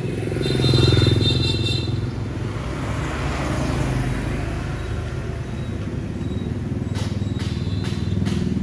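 Motor scooters riding past on a street: an engine hum swells about a second in with a brief high-pitched tone over it, then the engine and tyre noise of a scooter passing close by around the middle, and a few light knocks near the end.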